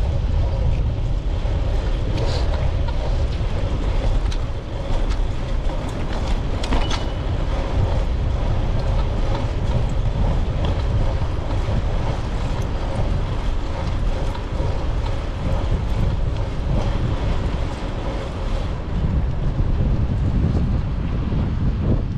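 Wind rumbling steadily across a GoPro Hero 9's microphone on a moving bicycle, with a few faint clicks and rattles.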